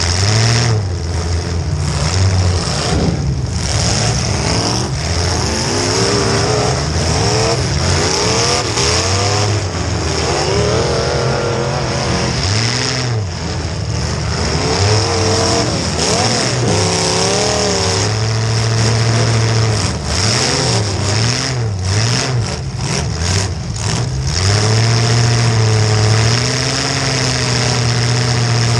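Demolition derby car engines revving hard, their pitch rising and falling over and over, with a quick run of sharp knocks about three-quarters of the way through.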